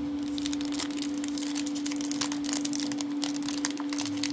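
Foil wrapper of a Magic: The Gathering booster pack crinkling and crackling as it is worked open by hand, a quick run of small crackles, over a steady background hum.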